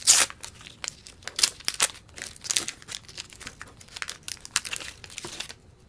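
Waxed-paper wrapper of an old-style baseball card wax pack being torn open and crinkled: a rapid run of sharp crackles, loudest at the first tear, stopping about half a second before the end.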